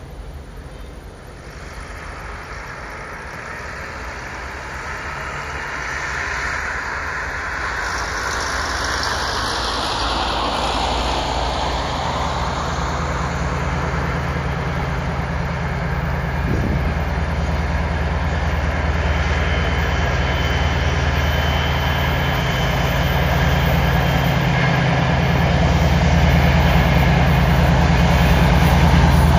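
TEP60 passenger diesel locomotive's two-stroke V16 engine running under load as the train approaches, the steady low engine note growing louder throughout.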